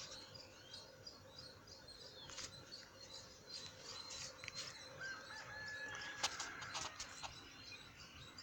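Faint background noise with small birds chirping now and then, and a short steady whistle-like tone near the middle.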